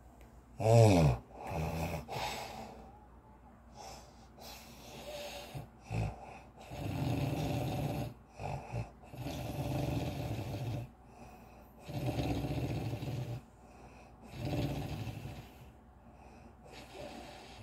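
Heavy snoring, one rasping snore every two to three seconds, from a sleeper whose nose the uploader says is blocked. A brief high vocal sound that slides in pitch about a second in.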